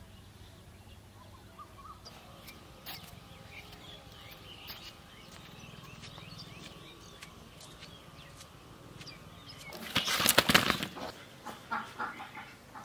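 Quiet rural outdoor ambience with small birds chirping faintly. About ten seconds in, a loud rustling burst lasting about a second, followed by a few shorter ones.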